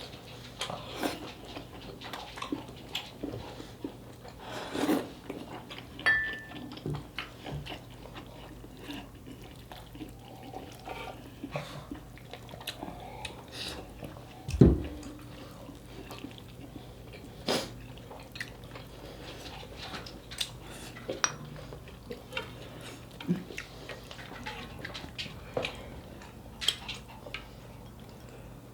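Close-up eating sounds: chewing and light clicks and taps of utensils against dishes, over a faint steady hum, with one heavier thump about fifteen seconds in.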